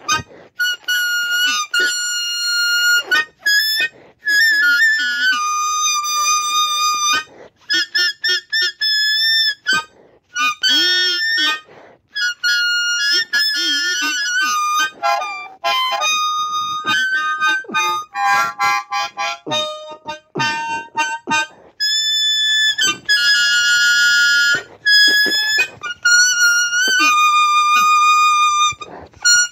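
Blues harmonica played in short phrases: held reedy notes and chords, some with a wavering bend, separated by brief breaks.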